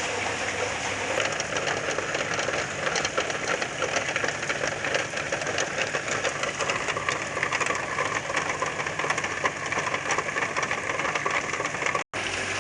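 Heavy rain pouring down: a dense, steady patter and hiss of drops. The sound cuts out for a split second near the end.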